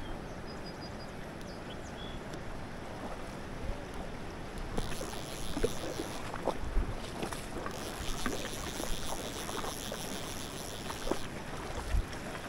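River current flowing and lapping over a shallow, rocky riffle, with scattered small splashes. The rush turns brighter and hissier for several seconds in the middle.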